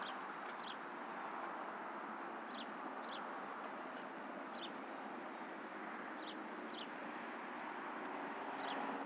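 A bird giving short, falling chirps, often two close together, every second or two, over a steady background hiss. A low hum swells near the end.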